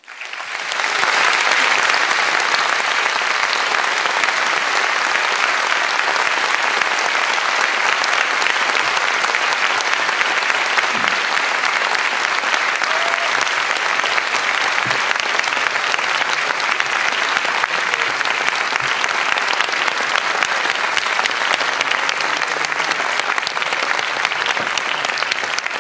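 A large audience applauding, a dense steady clapping that swells up within the first second and fades out near the end.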